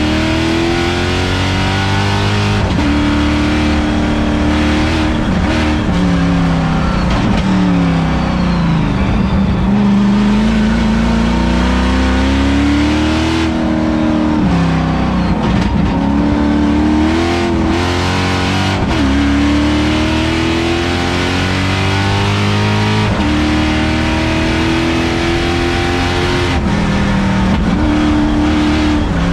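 LS3 V8 engine of a Mazda Miata race car, heard from inside the cabin at full throttle on track. The revs climb and fall repeatedly as it accelerates, shifts and slows for corners.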